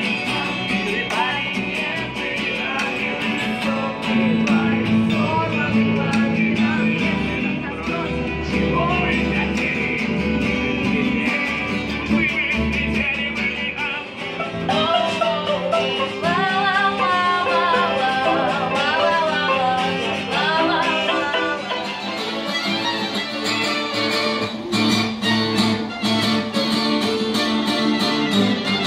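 Street musicians playing live: acoustic guitars strummed over a double bass, which drops out about halfway through, leaving acoustic guitar with a violin.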